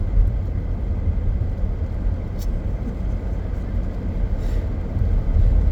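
Car cabin noise while driving down a wet road in a rainstorm: a steady low rumble from the road and engine, with a faint click about two and a half seconds in.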